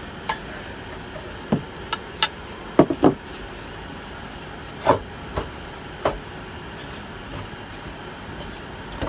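Irregular knocks and clunks, about ten of them with a pair close together about three seconds in, over a steady background hiss, as a bus's old suspension air spring is worked loose and pulled from its mount.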